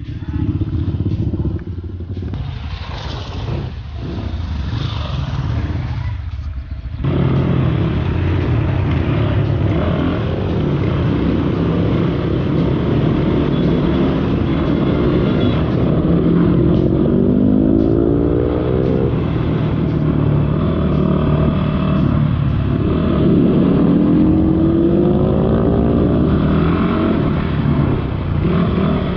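Motorcycle engine running under load on a rough ride, its pitch rising twice as it accelerates, about midway and again near the end.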